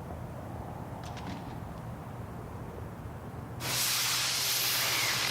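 Low, steady rumble, then about three and a half seconds in a loud, even hiss starts suddenly and runs on for about two seconds.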